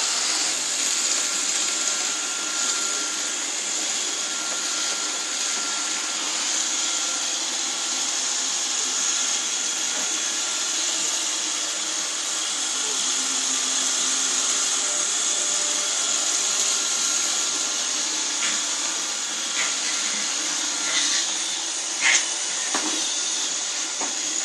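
Robot vacuum cleaner running steadily, a high whine over its motor and brush hiss, with a sharp knock near the end.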